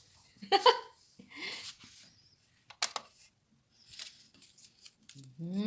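A few isolated sharp clicks and light handling noise from working on an ink-tank printer and its ink bottle, with a short vocal sound about half a second in.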